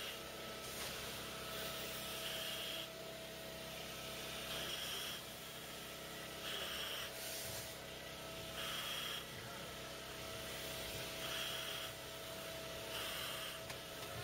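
Breathing through a firefighter's breathing-apparatus mask: a short hiss at each breath, repeating roughly every two seconds over a low steady background.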